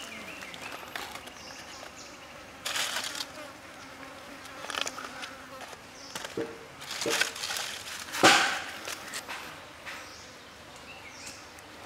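Brief rustling and squishing as raw squid is handled and turned over a wooden chopping board, the loudest about eight seconds in, with an insect buzzing past now and then.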